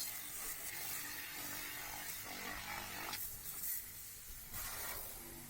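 High-pressure car washer spraying water: a steady hiss of the jet, changing a little about three seconds in.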